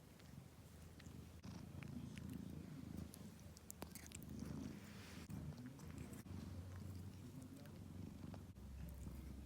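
Domestic cat purring softly: a low, pulsing rumble with a few faint clicks.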